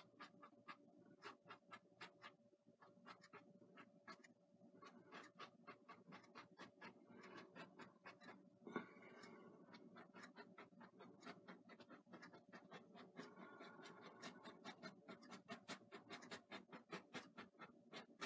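Bristle brush dabbing and scrubbing oil paint onto a canvas: faint, quick taps about four a second, with one sharper knock about nine seconds in.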